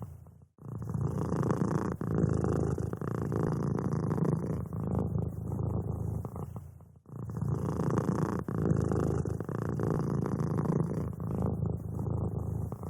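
Domestic cat purring: a continuous low, rough rumble, with brief breaks about half a second in and again about seven seconds in.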